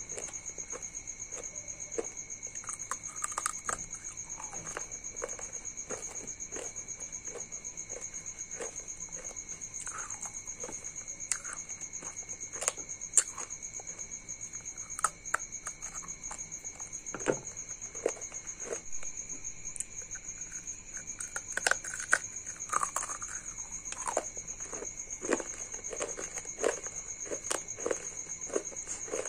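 Close-up biting and chewing of brittle pieces of a slate-pencil (sp) diya filled with paste, with irregular sharp cracks and crunches, over a steady high-pitched whine.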